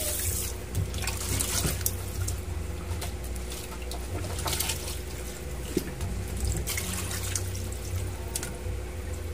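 Kitchen tap running into a stainless steel sink, shut off about half a second in; then water sloshing and splashing in a plastic tub as a raw whole chicken is rubbed clean, with the tub's water tipped out into the sink near the end.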